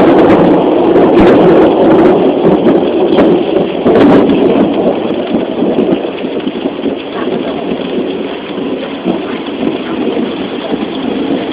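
A long roll of thunder over heavy rain, very loud and crackling for the first few seconds, then slowly rumbling away.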